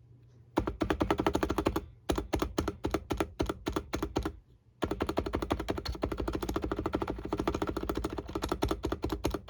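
Hansung GK868B keyboard with 50 g Noppoo electrostatic capacitive switches and stock stabilizers being typed on fast, a rapid run of keystrokes starting about half a second in, sparser strokes, a brief pause past the middle, then a long fast burst of typing.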